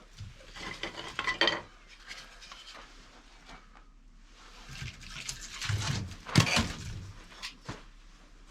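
Metal clattering and knocking in two bursts, the loudest knock a little after the middle: a wood stove being tended as a fire is started, with its door and the wood handled.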